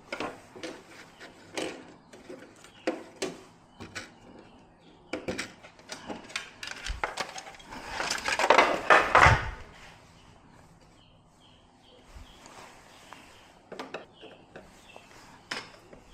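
Scattered clicks, knocks and clatter of hard objects being handled, with a louder, denser stretch of clatter about eight seconds in that lasts over a second.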